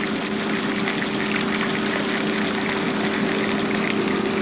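A motor running steadily with an even hum, over a constant wash of noise.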